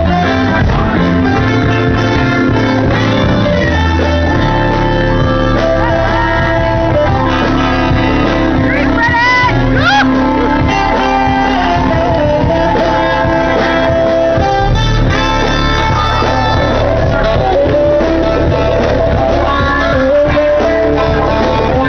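A live band playing loudly, with guitar and singing, and shouts from the crowd over it.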